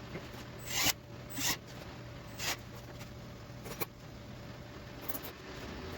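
Plastic zip ties being pulled tight through their locks: three short rasping zips about a second apart, then two quick clicks.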